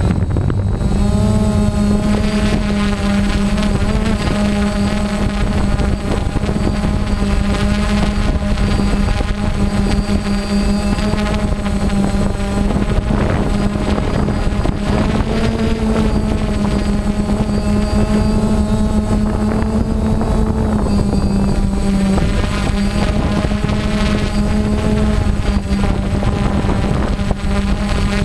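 Quadcopter drone's motors and propellers buzzing steadily in flight, heard from the drone's own camera, their pitch shifting slightly now and then, over a low wind rumble on the microphone.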